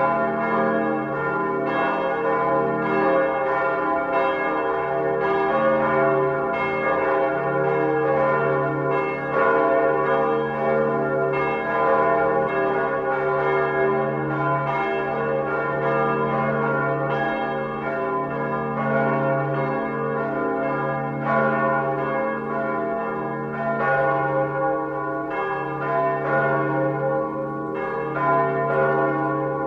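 Large church bell ringing, struck again and again about once a second or faster, each stroke ringing on under the next.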